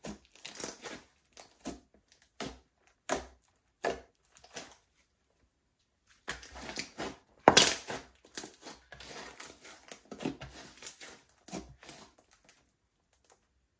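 Slime being mixed and squeezed by hand, giving irregular bursts of crackling and popping, with a pause of about a second and a half midway.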